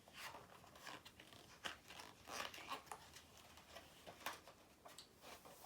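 Faint rustling and scattered small clicks of a picture book's paper pages being handled and turned.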